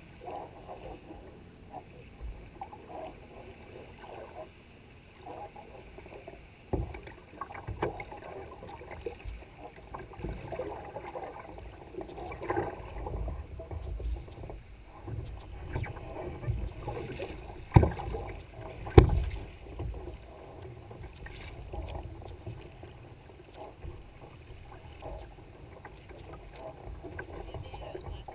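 Water rushing and lapping against a paddled sea kayak's hull, with a few sharp knocks, the two loudest a little over halfway through.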